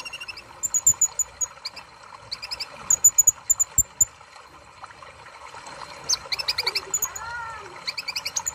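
Van Hasselt's sunbird (kolibri ninja) singing: quick runs of high, thin chirps in short bursts of several notes, with pauses of a second or so between bursts and a few quick down-slurred notes mixed in.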